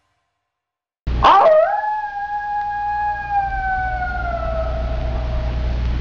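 One long canine howl over a steady low hum. It starts about a second in with a short waver, then holds on one note that sinks slowly toward the end, and cuts off abruptly.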